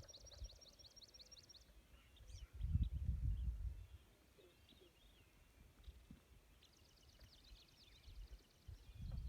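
Songbirds singing rapid trills of repeated high notes, at the start and again in the later part. A loud low rumble breaks in about two and a half seconds in for over a second, and again near the end.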